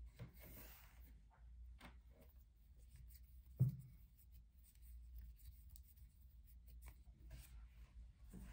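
Faint scratchy rubbing of a crochet hook drawing cotton yarn through stitches, in scattered short strokes, with one short soft thump about three and a half seconds in.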